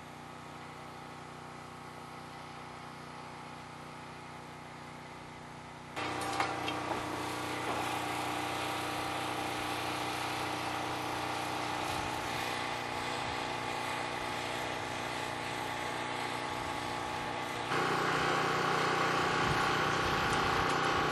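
A large engine running steadily, an even hum with a fixed pitch. It steps abruptly louder about six seconds in, with a couple of sharp knocks just after, and again a few seconds before the end.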